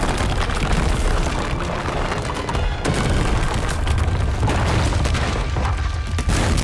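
Heavy rumbling and repeated booming impact sound effects of a quake blast, layered over dramatic music.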